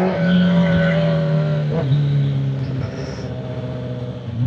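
Sport bike's inline-four engine running at steady revs, with a brief break in the note about two seconds in. It then eases off and goes quieter for a second and a half before the level comes back up at the end.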